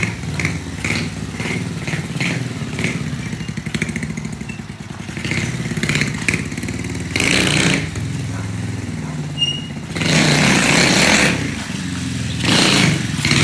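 Small moped-style motorcycle engine running throughout, with the throttle opened in louder surges around seven, ten and twelve seconds in as the rider lifts the front wheel into wheelies.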